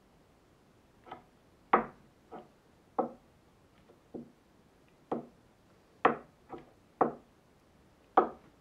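Wooden heel blocks knocking against each other and against the neck blank as they are shifted into place for gluing: about ten short, hard wooden knocks, unevenly spaced, starting about a second in.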